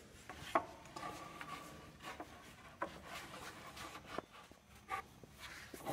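A few light knocks and scrapes of wood being handled as a board is set and clamped into a wooden scarfing jig, with sharp taps about half a second in, near three seconds, and between four and five seconds.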